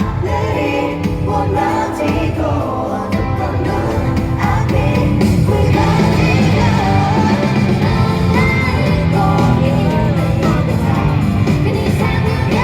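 K-pop girl group singing live over a pop backing track with a steady beat, played through an arena PA. It grows slightly louder about four seconds in.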